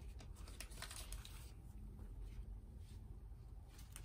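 Faint rustling and a few light clicks of a clear plastic sleeve being handled on a tabletop, mostly in the first second and a half, over a low steady room hum.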